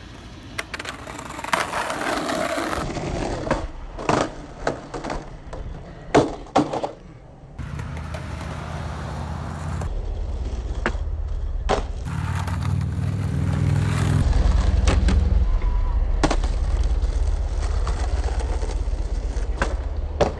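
Skateboard riding on asphalt and concrete: wheels rolling with a low rumble, and the board's tail pops and landings clacking again and again, most often in the first few seconds.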